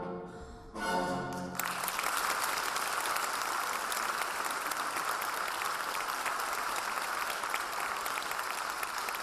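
Orchestral ballet music ends on a final chord, and an audience breaks into steady applause about one and a half seconds in.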